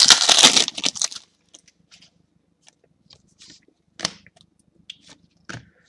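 A foil trading-card pack being torn open and crinkled for about a second, then only a few faint ticks and rustles as the cards are slid out and handled.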